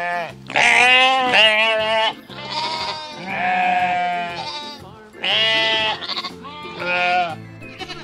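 A series of loud, wavering bleats from recorded farm-animal calls, several in a row with short gaps, over background music with a steady bass line.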